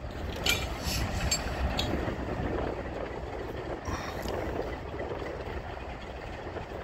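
Freight train rolling slowly in a reverse move: a steady rumble of cars and locomotives on the rails, with a few sharp clicks in the first two seconds and another near four seconds.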